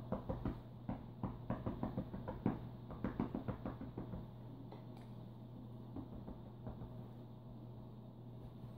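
A quick run of soft taps and knocks, several a second, from a thin stick toy flicked against a bed's covers in play with a cat. After about four seconds they thin out to a few scattered taps.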